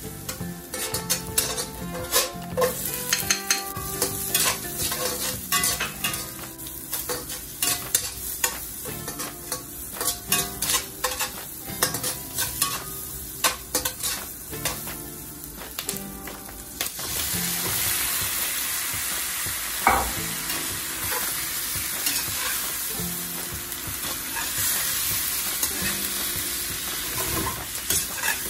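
A spatula scrapes and taps against a stainless steel wok while minced garlic and onion sauté with a light sizzle. About seventeen seconds in, a loud steady sizzle takes over as chicken pieces fry in the hot oil, with a single knock of the spatula a few seconds later.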